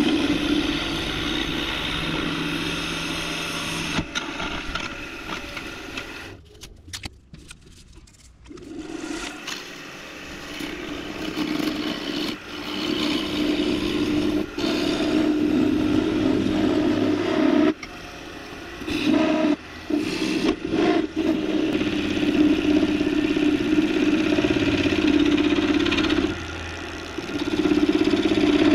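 A wood lathe spins a resin-and-grapevine bottle-stopper blank while a half-inch bowl gouge cuts it, a steady hum with a hissing, scraping cut as ribbons of shavings peel off. The cut stops for a couple of seconds a few seconds in and breaks off briefly a few more times, then resumes.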